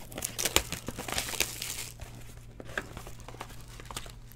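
Plastic wrapping on a sealed trading card box torn and crinkled by hand, a dense irregular crackle busiest in the first two seconds and sparser after, with a thin foil card pack handled near the end.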